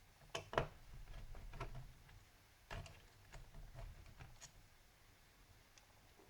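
Faint clicks and light taps of a small screwdriver undoing screws on a laptop's cooling radiator, with handling rustle in between. The sharpest clicks come about half a second in and near three seconds.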